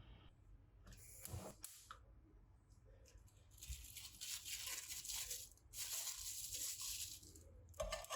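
Household handling noises: a couple of short rasps, then two long rasping strokes of about a second and a half each, and a short sharp rasp near the end.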